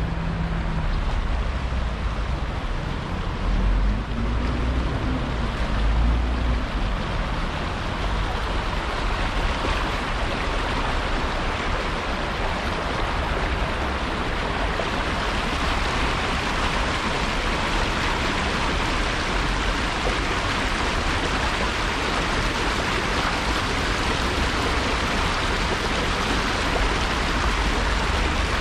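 Rushing water of a city stream, growing louder from about halfway, over a low rumble of traffic that is stronger in the first few seconds.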